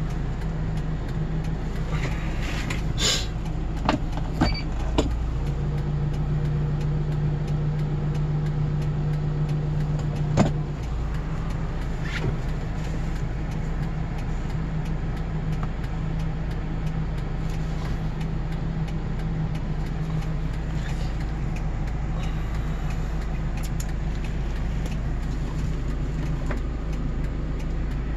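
Diesel engine of a Kia Bongo 3 box truck idling steadily, heard from inside the cab, with a few sharp clicks in the first ten seconds or so.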